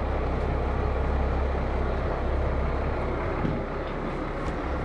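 Charter boat's engine running at low speed while coming in to the dock, a steady low hum that drops away about three and a half seconds in.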